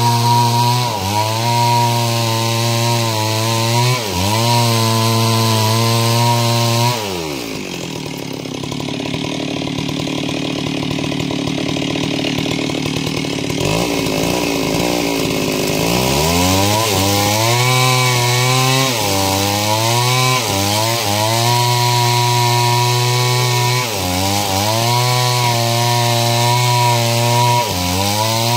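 Stihl two-stroke chainsaw ripping wood lengthwise into planks, running near full throttle with its pitch dipping again and again as the chain bogs in the cut. About seven seconds in it drops to a lower, quieter speed for several seconds, then revs back up and keeps cutting.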